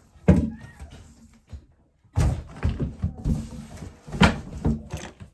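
Old toilet parts being lifted and set down hard, making a series of knocks and thumps: a sharp knock right at the start, a brief pause, then a run of several clunks.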